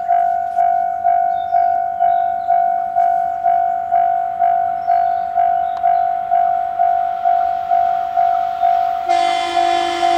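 Japanese level-crossing warning bell ringing steadily, about two strikes a second. Near the end, the horn of a JR Central 313/211 series electric train gives one short blast that runs on past the end.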